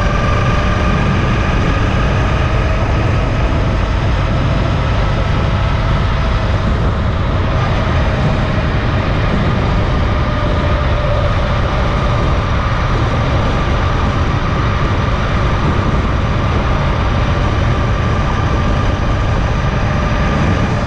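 Motorcycle cruising at steady highway speed: its engine drones under heavy wind rush on the microphone, with a steady whine that creeps slightly up in pitch.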